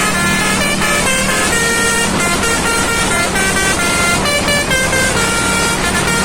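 A bus's telolet basuri horn, a multi-tone musical air horn, playing a tune of quickly changing notes. Steady road and engine noise runs underneath.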